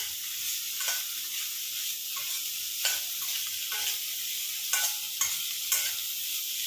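Diced vegetables and peas sizzling in hot oil in a stainless steel kadai while a steel slotted spatula stirs them. The sizzle is a steady hiss, broken by about eight sharp, irregular scrapes of the spatula against the pan.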